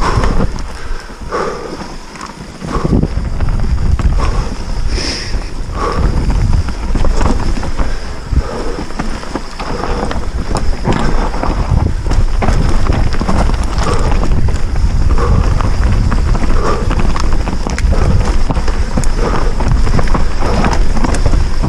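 Wind buffeting a helmet-mounted microphone on a fast mountain-bike descent, with the Orbea Rallon's tyres rolling over dirt and loose stones and the bike rattling and knocking over bumps. It grows louder about three seconds in as speed builds.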